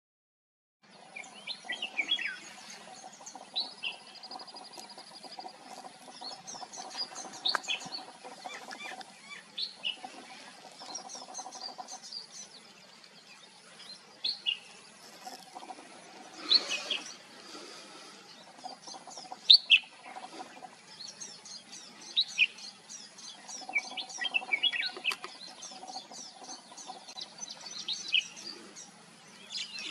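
Red-whiskered bulbuls calling: many short, sharp chirps and quick phrases, some louder than others, starting about a second in. A faint steady high-pitched tone runs behind them.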